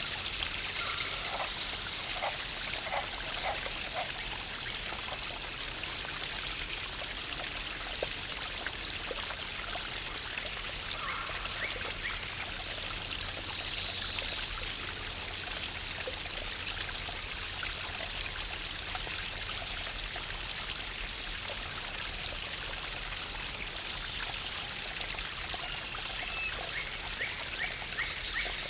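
Waterfall: a steady rush of falling and splashing water, with birds calling over it; a short falling run of notes about halfway through and a quick series of chirps near the end.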